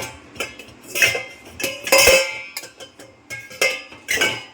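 Stainless-steel pots, plates and utensils clanking and clinking against each other and the rack as they are set into a dishwasher, a string of sharp metallic knocks, some ringing on briefly.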